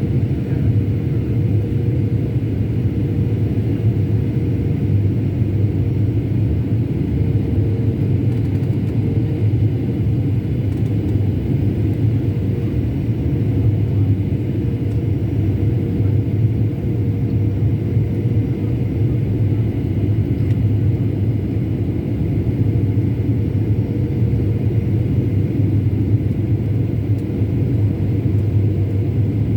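Steady low drone of an airliner cabin in flight: engine and airflow rumble with a faint held hum, unchanging throughout.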